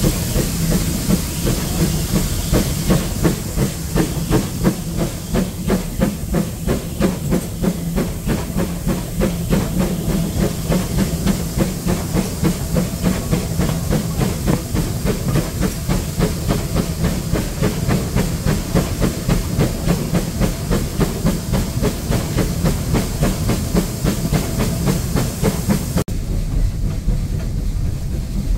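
Steam tank locomotive working along the line, heard from the open window of the carriage behind it: regular exhaust beats with steam hiss over a rumbling run. Near the end the sound turns duller and lower.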